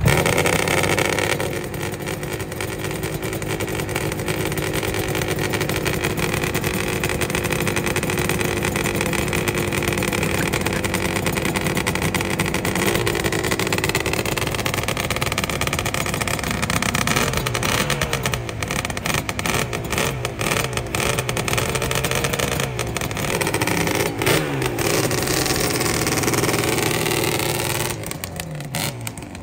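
A motor vehicle's engine running on the move: a steady pitch for the first half, then rising and falling repeatedly past the halfway mark as it slows and speeds up.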